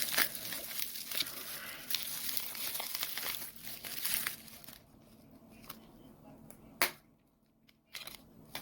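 Packaging crinkling and rustling as a small phone is unwrapped, for about the first four and a half seconds. It is followed by a quieter stretch with a few light clicks and knocks.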